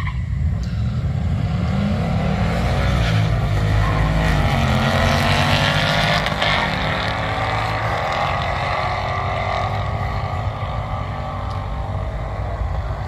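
Two Ford Mustangs, one a 2024 Mustang GT convertible, launching side by side and racing down a drag strip at full throttle. Their engine notes climb through the gears over the first several seconds, loudest about four to six seconds in, then carry on more steadily as the cars pull away.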